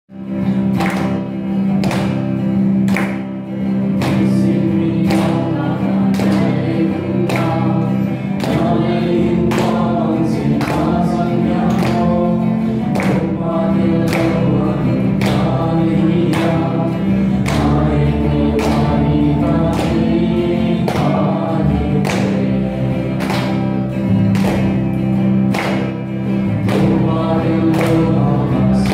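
A man sings a gospel worship song, accompanying himself on a guitar strummed in a steady, even rhythm.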